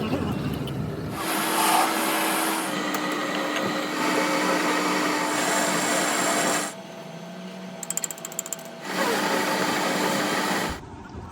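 Workshop power tools and machinery running in a series of short, abruptly cut clips, with a steady machine hum and whine in most of them. A quieter stretch with rapid ticking comes a little past the middle.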